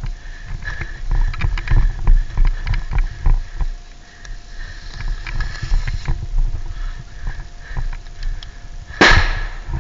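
Uneven low rumbling of wind and handling noise on a player-worn camera's microphone, with scattered clicks and knocks. Near the end a sudden loud burst of noise cuts in.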